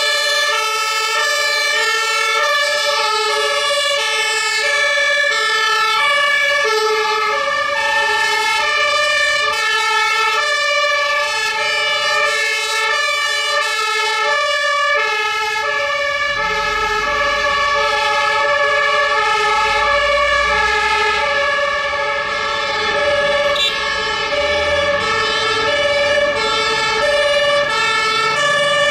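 Two-tone sirens of German fire engines alternating steadily between a high and a low note, more than one of them sounding out of step. From about halfway through, a low engine rumble joins in.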